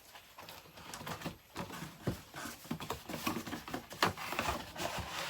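Vinyl records in their sleeves being packed back into a cardboard box, with irregular knocks and scraping of card and sleeves, and a sharper knock about four seconds in.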